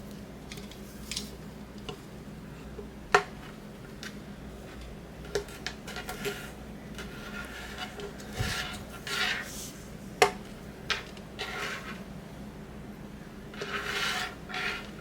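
Small objects being handled on a hard surface: two sharp clicks or taps, one about three seconds in and one about ten seconds in, with softer taps and short stretches of rubbing and rustling between.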